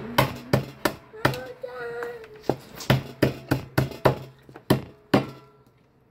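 Seafood shells being cracked and picked apart with a metal shell cracker: a rapid series of sharp cracks and clicks, about three a second, thinning out near the end.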